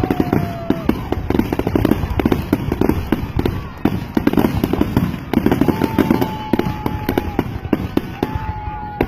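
Fireworks display going off close by: a dense run of rapid crackling reports over a continuous low booming, with a long steady whistling tone now and then.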